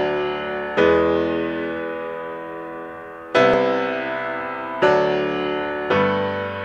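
Background music of slow keyboard chords, each struck and left to ring and fade, with a new chord about once every one to two seconds.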